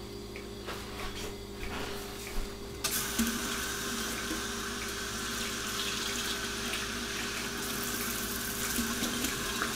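Kitchen tap turned on about three seconds in, cold water running steadily into a measuring cup.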